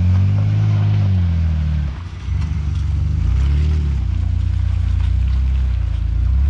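Jeep Wrangler engine running under load as it crawls over rough trail, its pitch rising and falling in a few swells as the throttle is worked.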